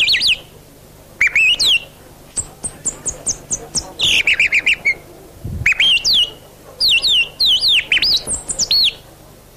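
A man whistling bird-call imitations into a microphone: phrases of chirps, swooping rising and falling whistles and quick runs of short notes, with a fast trill about four seconds in.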